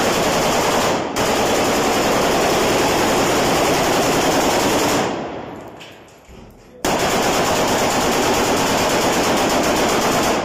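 AK-47 rifle firing long full-automatic bursts. The first burst, with a brief break about a second in, lasts until about five seconds and then dies away. A second long burst starts abruptly about seven seconds in.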